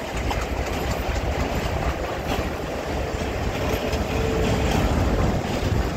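Diesel locomotives rolling slowly past in reverse: a steady low engine rumble with the wheels running over the rail, and a faint steady tone in the middle.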